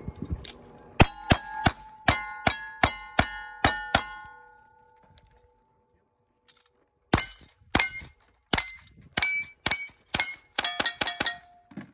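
Gunshots on steel targets, each shot followed by a plate ringing. A string of about ten shots comes in the first few seconds, then a pause of about three seconds, then about a dozen more, the last ones in quick succession. The second string is fired from a rifle.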